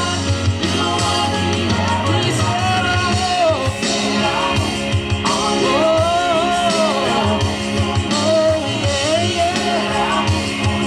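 Gospel worship song: a voice sings long melodic lines that arch up and down over a band with a steady bass.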